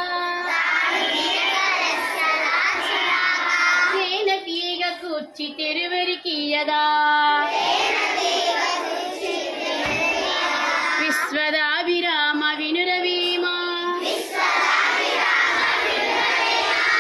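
A group of young children singing a song together, with long held notes.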